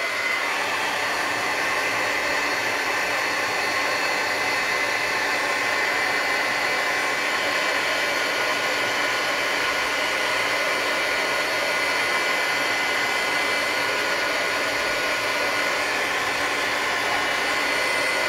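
Handheld embossing heat gun running steadily, an even rush of blown air with a faint whine in it, as it melts embossing powder on a stamped card.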